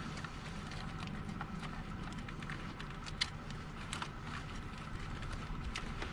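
Scattered faint light clicks of metal parts and tools being fitted by hand in a car's engine bay, over a steady low background hum.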